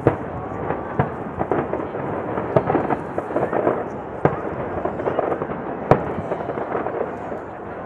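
Aerial fireworks bursting in rapid succession: a dense, continuous run of bangs and crackles over a steady rumble, with a few sharper, louder bangs about two and a half, four and six seconds in.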